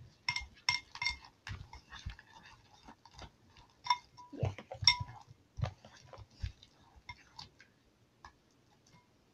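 Plastic spoon stirring clear glue and activator in a glass container, clinking and tapping against the glass many times as the slime forms, with a short squeaky sound about four and a half seconds in. The taps thin out near the end.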